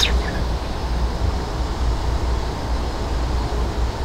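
Wind buffeting the microphone: an uneven low rumble that swells and drops, with one brief sharp sound right at the start.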